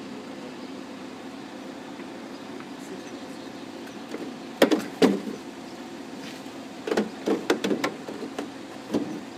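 Swing bridge machinery running with a steady hum while the bridge is stuck. A string of sharp knocks comes in from about halfway: two close together, then a quick cluster of five or six.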